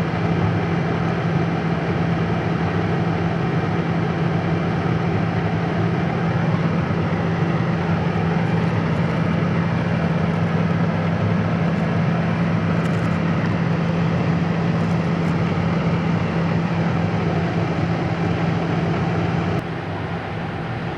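Large engine idling steadily, a constant low hum under a broad rushing noise. The level steps down slightly near the end.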